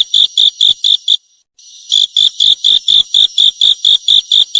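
Grasshopper chirping sound effect: a steady run of short, high insect chirps, about four or five a second, that breaks off about a second in and starts again half a second later.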